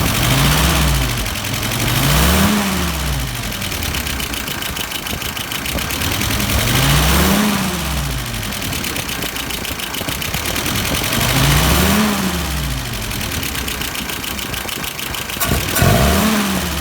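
Freshly tuned carbureted engine idling, its throttle blipped five times so that it revs up and falls back to idle each time, a test for the stumble off idle the owner had reported. A few light clicks come just before the last blip.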